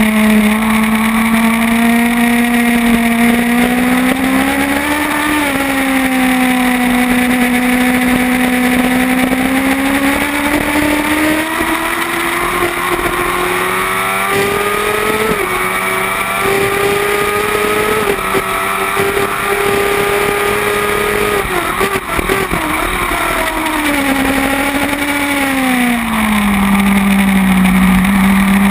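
Kawasaki ZX-10R inline-four engine at racing revs, heard from the bike itself. It pulls hard through the gears, its pitch climbing and dropping sharply at each upshift, then the revs fall steadily as the bike slows for a corner a little over 20 seconds in. Wind rush runs underneath.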